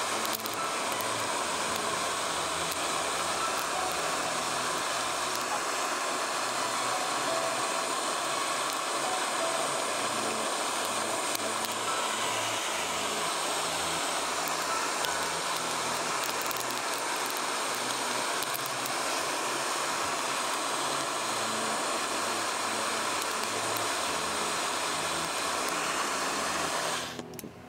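Gas blowtorch flame burning with a steady, loud rushing noise as it heats a pan of popcorn kernels; it cuts off abruptly near the end.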